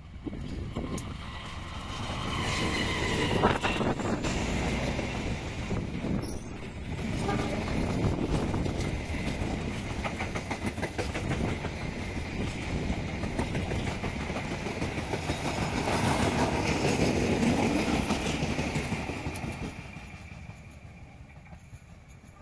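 Train hauled by a diesel-electric locomotive passing, its wheels clattering rhythmically over the rail joints. The sound builds over the first couple of seconds and fades away near the end.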